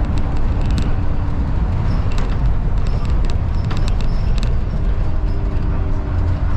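Dennis Trident double-decker bus under way, heard from the upper deck: a steady low engine and road drone with frequent short clicks and rattles from the body and fittings. A faint steady whine fades out about a second and a half in and comes back near the end.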